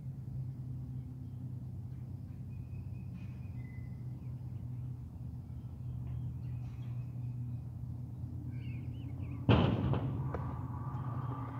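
Birds chirping faintly over a steady low hum, then about nine and a half seconds in a sudden loud clack of wheels hitting the concrete, followed by a fading rolling noise.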